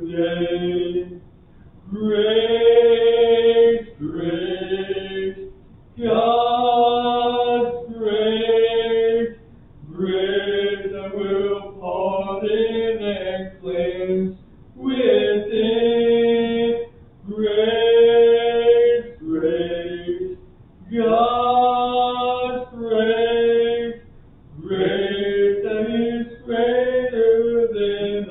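Church hymn singing: voices holding long notes in phrases a second or two long, with short breaths between them.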